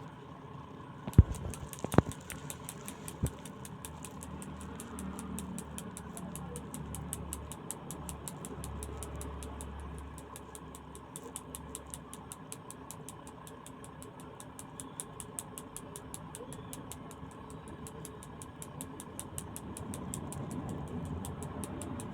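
Head and neck massage: three sharp cracks about one, two and three seconds in. A steady engine-like hum with a fast, regular high ticking runs under the rest.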